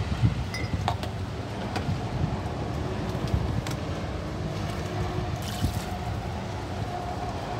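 Steady low outdoor rumble of wind and vehicle noise, with a few light clinks and knocks of plastic dishes being washed by hand and a brief splash-like hiss about five and a half seconds in.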